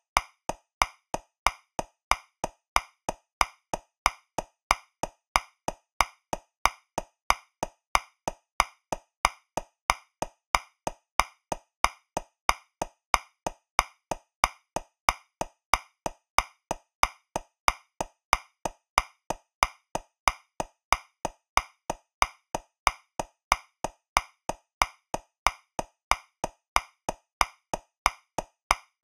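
Metronome clicking at 185 beats per minute, about three clicks a second, in 2/4 time: every other click is louder, accenting the first beat of each bar.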